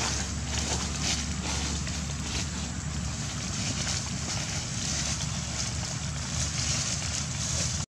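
Steady wind noise on the microphone, a low rumble under an even hiss, with no clear animal calls. The sound cuts out abruptly for a moment near the end.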